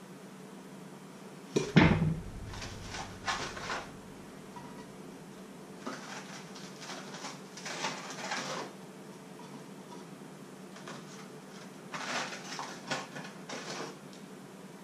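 Kitchen handling noises: a loud knock about two seconds in, then several short bouts of clatter and rustling as frozen fish fingers are taken from their cardboard box and laid in a frying pan, over a steady low hum.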